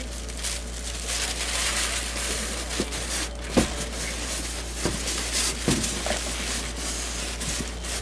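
Cardboard speaker box and its packing rustling and scraping as it is handled, with a few sharp knocks, the loudest about three and a half seconds in. A steady low hum runs underneath.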